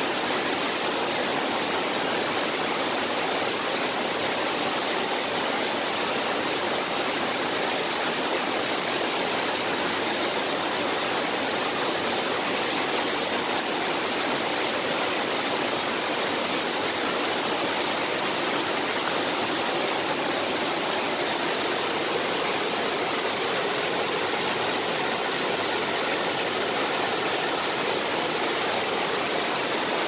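Water from a small river waterfall pouring over a smooth rock ledge: a steady, unbroken rush of white water.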